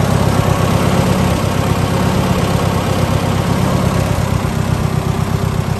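International Harvester 300 utility tractor engine idling steadily, with an even, rapid firing beat.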